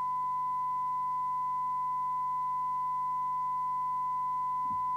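A steady, unbroken 1 kHz test tone with a faint overtone: the tone modulating the signal generator's carrier, received and played by the Realistic TRC1001 CB radio under receiver alignment.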